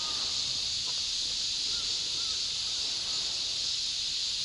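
Steady high-pitched drone of insects, likely summer cicadas, from the wooded shore, with a few faint, short bird calls.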